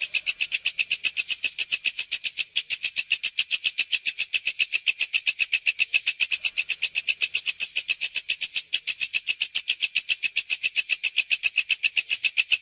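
Walang kecek (a bush cricket, or katydid, of the family Tettigoniidae) calling: a fast, even train of sharp, high-pitched stridulation pulses.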